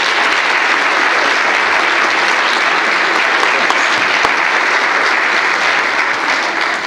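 An audience applauding steadily, the clapping dying away at the very end.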